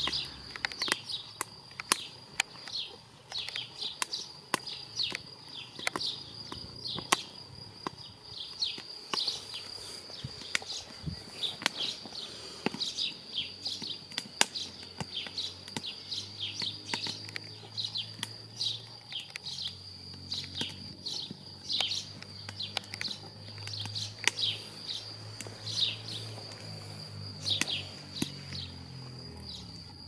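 Wood fire crackling and popping in a small cast-iron stove, with sharp irregular snaps, while birds chirp repeatedly. A faint low drone comes in about halfway through.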